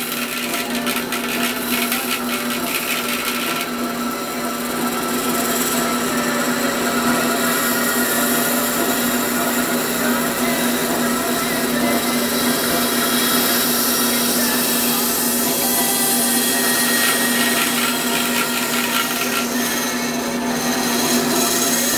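Bandsaw running with a steady motor hum and the noise of its blade cutting, rougher and rasping for the first few seconds and again near the end.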